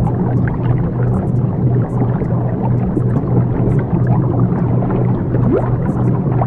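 Ambient meditation soundscape: a steady low hum, the track's delta-wave frequency layer, under a dense, even, watery gurgling wash with faint gliding tones, unchanging throughout.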